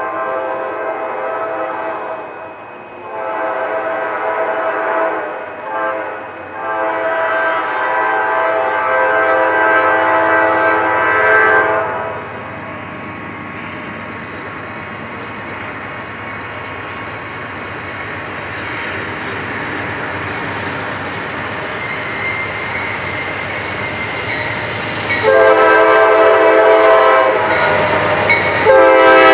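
Norfolk Southern GE C40-9W diesel locomotive horn sounding for a grade crossing: long blasts broken by short gaps over the first twelve seconds, in the long-long-short-long crossing pattern. Then the steady rumble of the passing locomotives and intermodal cars, and the horn again, louder, near the end.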